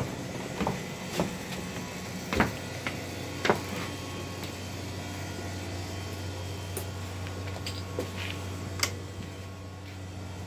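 Steady low machine hum with scattered knocks and bumps, several in the first few seconds and a couple of sharp clicks later on.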